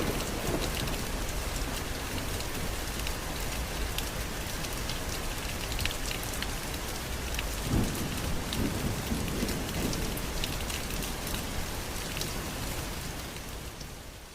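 Steady rain falling, with the close patter of individual drops over a constant hiss. A low rumble of thunder sets in about eight seconds in, and the rain fades out near the end.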